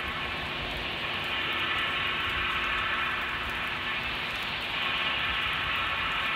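Steady droning rumble with a dense layered hum, swelling slightly about five seconds in.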